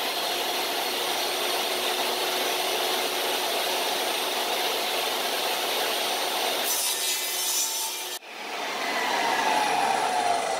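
Jobsite table saw running and ripping a white-faced plywood panel along its fence, a steady cutting noise. About eight seconds in the cutting noise breaks off sharply, then a falling whine follows as the blade winds down.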